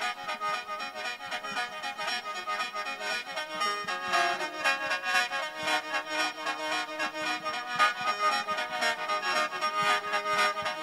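Khaen, the Isan bamboo free-reed mouth organ, playing a lively mor lam melody over a steady drone, in quick even pulses.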